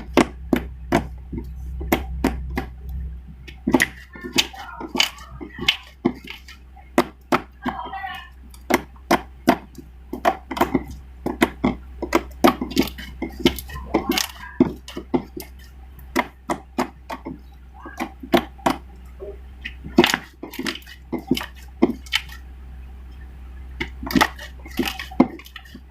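Slime being squeezed, stretched and poked by hand, making many sharp, irregular clicks and pops.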